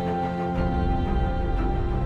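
Background music: sustained notes over a low bass.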